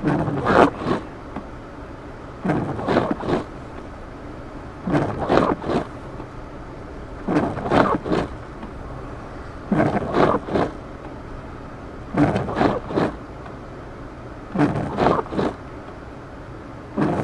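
Windshield wipers scraping across a snow-covered windshield, a double stroke about every two and a half seconds, over the steady hum of the car driving, heard from inside the cabin.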